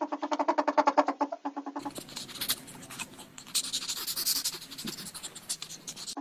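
Ferrets dooking, a rapid clucking chatter, for about the first second and a half. Then scrabbling, scratching and rustling as two ferrets wrestle on a hard floor, with more chatter mixed in. Dooking is the sound ferrets make when excited at play.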